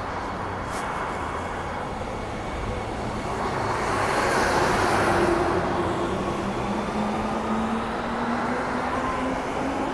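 Transperth Bombardier B-series electric train pulling out of the platform: a rushing run of wheel and body noise that swells as it passes, with a motor whine that climbs slowly in pitch as it gathers speed.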